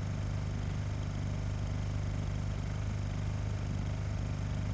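A steady low hum with no change in level or pitch.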